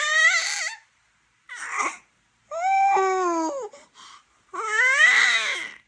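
A baby vocalizing in loud, high-pitched drawn-out calls: three main ones and a shorter one between, their pitch arching up and down, the middle call the longest.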